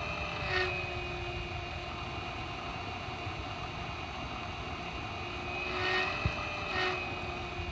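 A motor running steadily with a whine, swelling briefly about half a second in and twice near the end.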